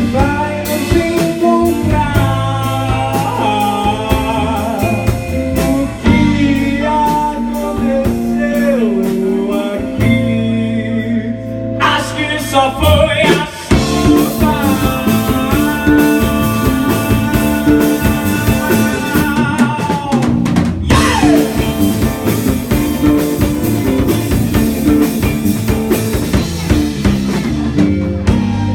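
Live rock band playing: electric guitar, bass and drum kit, with a short break about thirteen seconds in before the full band comes back in.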